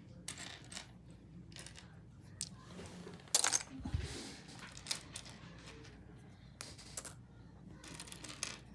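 Loose plastic Lego pieces clicking and rattling as they are picked through and sorted by hand, in scattered clicks, with a louder rattle and a low thump about three and a half seconds in.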